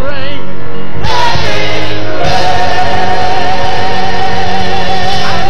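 Live gospel worship music from a choir and band. The music swells to a fuller sound about a second in, and a long note with vibrato is then held above it almost to the end.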